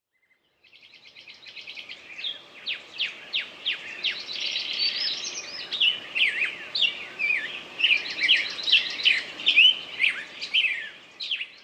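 Several songbirds singing at once, a dense mix of fast trills and sharp, falling whistled notes over a soft background hiss. Fades in just under a second in and stops abruptly at the end.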